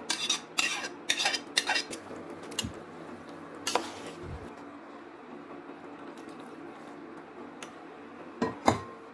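Spoon and dishes clinking against a cooking pot as fried vegetables are tipped in: several sharp clinks and knocks in the first two seconds, one more about four seconds in, then quieter handling with a couple of knocks near the end.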